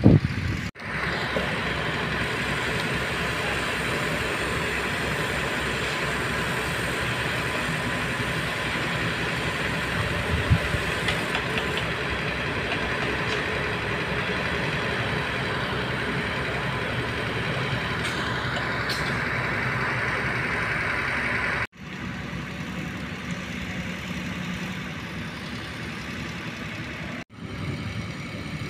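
Heavy diesel construction machinery running steadily, engine noise with a low rumble. It breaks off for a moment three times, twice near the end, and runs quieter after the second break.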